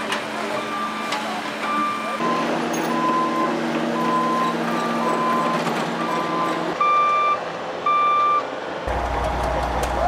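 Backup alarms on heavy construction equipment beeping at a steady pace of roughly one beep a second, two alarms of slightly different pitch overlapping in the middle, over a machine's engine running. Two longer, louder beeps come near the end.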